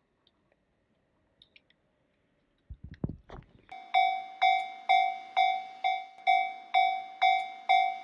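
A low thump about three seconds in, then a railway level-crossing warning bell starts up: an electronic 'kan-kan' ding struck about twice a second, each strike dying away before the next.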